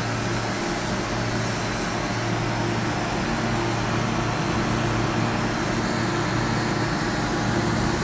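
Steady machinery hum with an even hiss over it, unchanging throughout.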